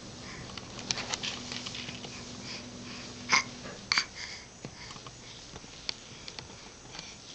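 A baby's sniffs and short breathy noises, with soft clicks and rustles and two sharper short sounds about three and four seconds in, over a faint steady hum.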